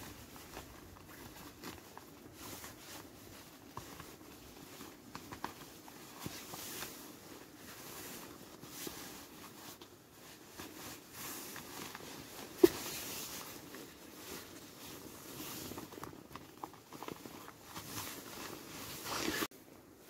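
Hands unlacing hiking boots: laces pulled through the hooks and eyelets amid rustling of clothing, in short irregular scrapes, with one sharp click about two-thirds of the way through.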